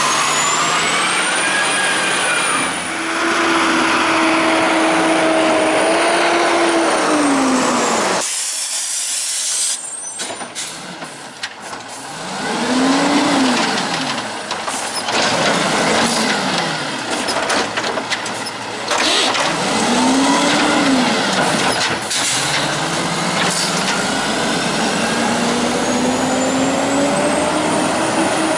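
Diesel engine of a White GMC Amrep automated side-loader garbage truck revving up through its gears as it pulls away. After a cut, the engine rises and falls with each cycle of the hydraulic lift arm, with sharp bangs as the cart is slammed and dumped and air brakes hissing. Near the end the engine revs up again as the truck moves off.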